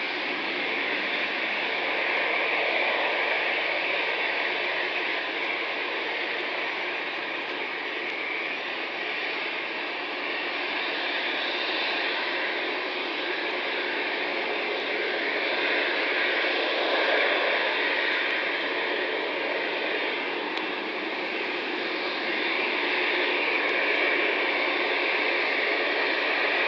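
Jet engines of a four-engined Boeing 747-8F at takeoff thrust as it lifts off and climbs away: a steady rushing jet noise that grows a little louder near the end.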